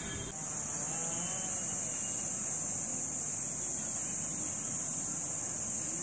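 A steady, high-pitched insect drone that gets louder just after the start, with a few faint bird chirps about a second in.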